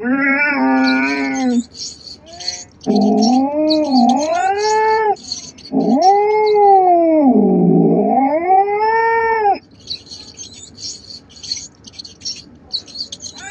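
Domestic cat yowling: three drawn-out calls whose pitch rises and falls, the last and loudest nearly four seconds long. The calls stop about ten seconds in.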